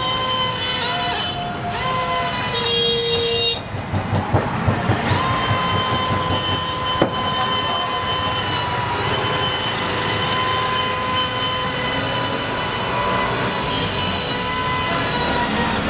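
Small brushed DC motor of a matchbox toy helicopter running with a steady whine. It dips and stutters in a few short pulses about three and a half seconds in, then spins back up to the same pitch.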